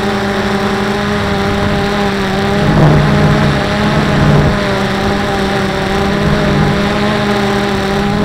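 Quadcopter drone's electric motors and propellers whirring steadily, heard from the camera on board, swelling briefly about three seconds in and again at the very end.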